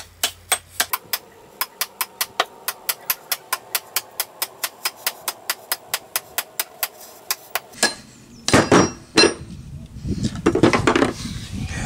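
Rapid, steady mallet taps, about four a second, knocking a 1960s Brades axe head off its split wooden handle. The tapping stops about eight seconds in, followed by a few louder, heavier knocks and a rattle as the head comes loose.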